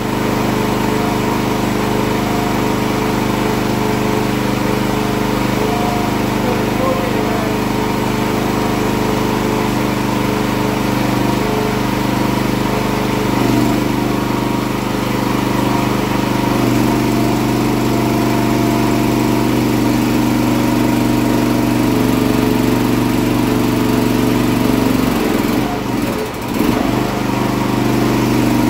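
Small DuroMax gasoline engine running steadily, driving the hydraulic pump of a jet-engine starter rig; its tone shifts a little over halfway through as the hydraulic valve is worked to turn the J34 turbojet over.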